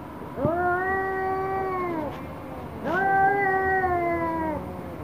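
Domestic cat yowling, two long drawn-out howls of about a second and a half each, holding their pitch and dropping at the end: the threat call of a cat in a standoff with another cat.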